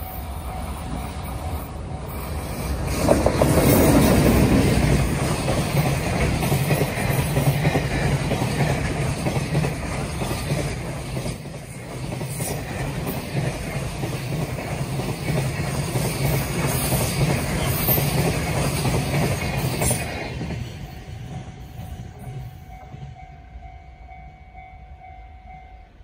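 EH500 electric freight locomotive hauling a long train of Koki 100-series container wagons past at close range. The noise builds to its loudest a few seconds in as the locomotive passes, then the wagons' wheel noise on the rails runs on steadily and fades away after about twenty seconds as the train recedes.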